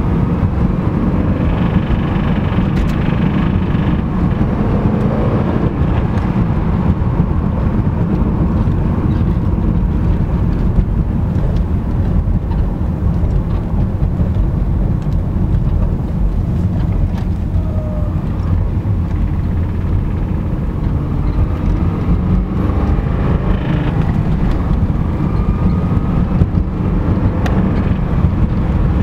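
2005 Subaru Impreza RS's 2.5-litre flat-four engine running with a knock, which was found to be a rod knock.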